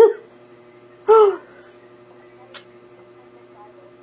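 A woman's brief hummed vocal sound about a second in, then a single faint mouth click as she eats a ripe mango, over a steady low hum.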